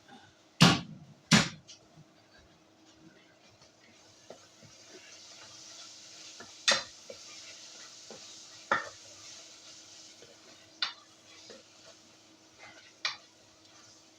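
A metal spoon knocking against a cooking pot while spices and raisins are stirred in. There are two sharp knocks about a second in, then single knocks every two seconds or so. A faint sizzle can be heard between them.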